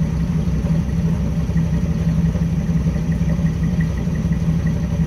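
Late-1960s GMC pickup truck's engine idling steadily, a low, even exhaust rumble.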